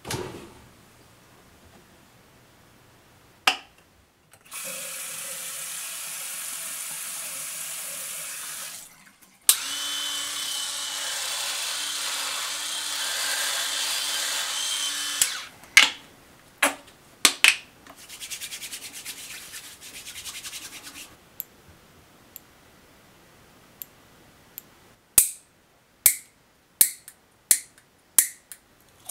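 Bathroom grooming sounds: the medicine cabinet door clicks open, then come long stretches of steady hissing and a series of sharp clicks and taps as toiletry containers are handled, opened and put down.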